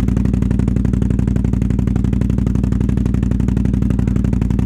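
ATV engine idling steadily at an even, fast pulse.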